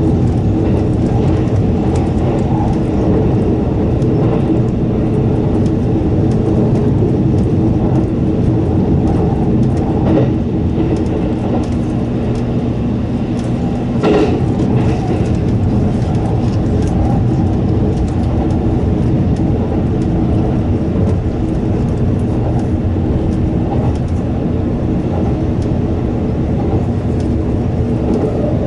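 783 series electric train running steadily at speed through a tunnel, heard from inside the front car: a continuous rumble of wheels and running gear with a steady low hum. Brief clicks about ten seconds in and again about four seconds later.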